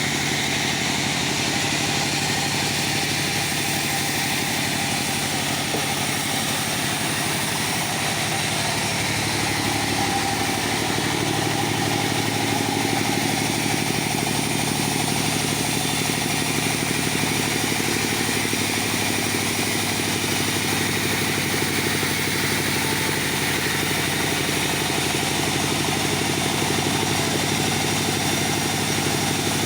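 Sawmill circular-saw machine running steadily while sawing mahogany, with a steady machine hum and a shift in its pitch about ten seconds in.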